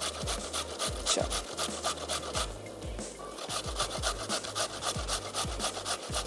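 Carrot being grated on a hand-held grater: quick, even rasping strokes, about five a second, with a brief pause about two and a half seconds in.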